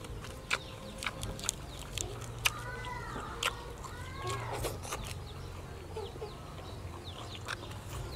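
Chickens clucking, two calls near the middle, among a scatter of sharp clicks and taps.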